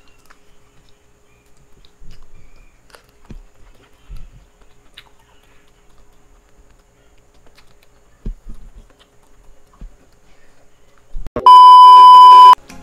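Faint eating sounds, with scattered small clicks and smacks from fingers and mouth on buttered shrimp. Near the end a short burst of noise, then a loud, steady, high test-tone beep for about a second, the tone that goes with a TV colour-bar glitch transition.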